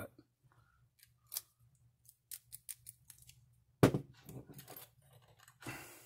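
Light metallic clicks from lock-picking tools working a cheap laminated-steel padlock, which has jammed. A quick run of about five clicks comes a little past two seconds in, then one sharp knock just before four seconds, followed by soft handling rustle.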